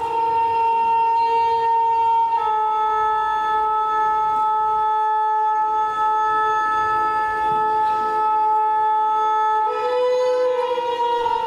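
Music: a wind instrument holding long, steady notes. The note steps down slightly about two seconds in and back up near the end.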